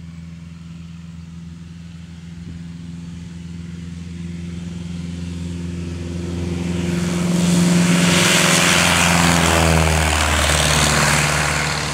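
Engine of a large radio-controlled scale tow plane running at full power on its takeoff roll, growing louder as it comes toward and past the microphone along with a rising rush of propeller noise. The pitch drops as it goes by, about ten seconds in.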